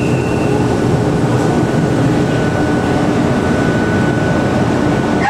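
Heritage train hauled by an E.636 electric locomotive running along the line: a loud, steady rumble of wheels and running gear with a thin, steady high tone over it.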